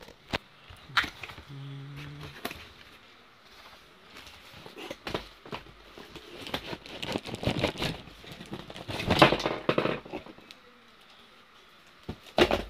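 Paper and plastic packaging being handled: irregular rustling and crinkling with scattered clicks and knocks, loudest about nine seconds in and again near the end.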